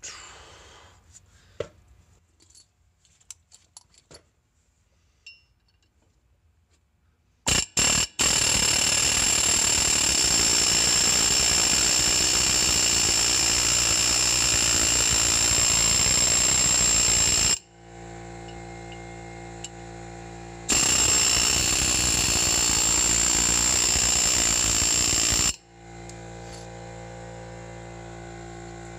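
Pneumatic air hammer with a punch bit hammering against a rear wheel stud in the hub, in two long runs of about nine and five seconds, starting about seven seconds in after a few faint clicks, with a high ringing tone over the rapid blows. The bit is digging into the stud rather than knocking it out. A steady low hum sounds between the runs and after them.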